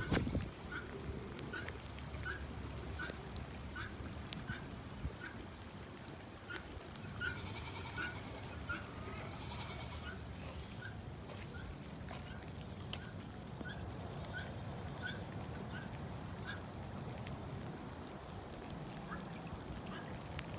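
An animal's short call repeated steadily, about three every two seconds, with a brighter, higher chattering between about 7 and 10 seconds in, over a low rumble.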